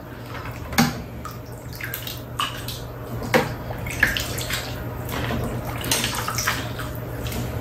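Cold cucumber-and-plum soup being ladled from a stainless-steel pot into bowls: liquid splashing and pouring, with scattered clinks of the metal ladle and spoons against the pot and bowls. A steady low hum runs underneath.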